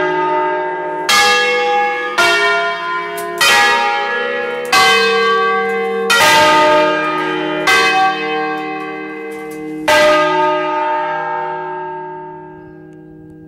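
Church bells of a five-bell ring in E-flat, cast by Achille Mazzola in 1951, swinging and struck by their clappers in a solemn peal. The strokes come further and further apart, the last one about ten seconds in, and the bells then hum as they die away.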